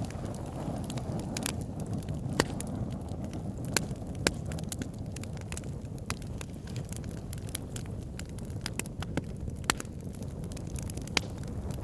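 Wood campfire burning: a steady low rumble of flames with many small crackles and a few louder, sharp pops.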